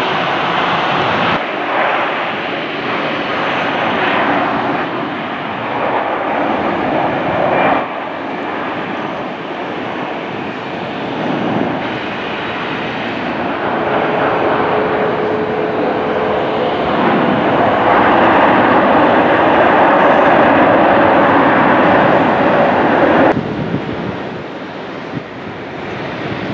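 Jet airliner engines across edited shots: taxiing jets, then a widebody twin-jet on its take-off roll with a steady whine, getting louder and loudest about two-thirds through. The sound changes abruptly about a second in and again near the end.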